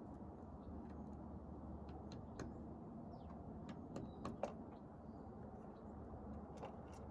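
Faint outdoor ambience: a steady low rumble with scattered sharp clicks, a cluster of them about four seconds in, and a few faint, short, high bird chirps.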